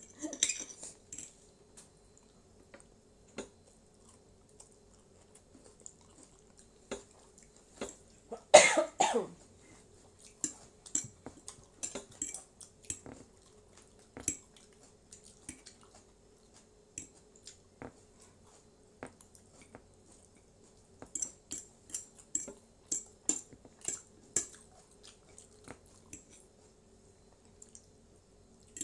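Close-up eating sounds of instant fried noodles: chewing, small slurps and the tick of a fork and chopsticks against plates, scattered through, with a busier run of them near the end. A single cough about eight and a half seconds in is the loudest sound, over a faint steady hum.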